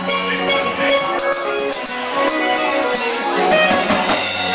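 Live band playing: electric guitar over a drum kit, with a bright crash near the end.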